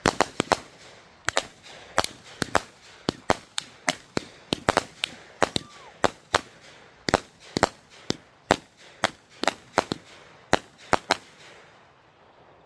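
Small consumer aerial fireworks firing and bursting in quick succession: a string of sharp pops and cracks, several a second, that stops about a second and a half before the end.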